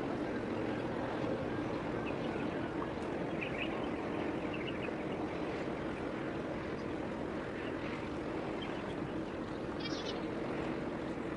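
Steady low rumble of a large cargo ship under way across the harbour. A few short high chirps come about three seconds in and again near the end.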